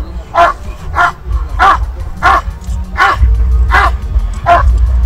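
Police dog barking at a steady, regular pace, about eight barks in a row, roughly one every two-thirds of a second.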